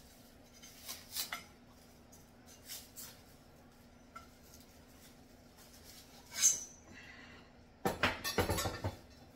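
Plastic cling wrap crinkling and tearing as it is peeled off black steel spit-roaster posts, in short scattered bursts, with a louder, denser stretch of crackling near the end. A faint steady hum lies underneath.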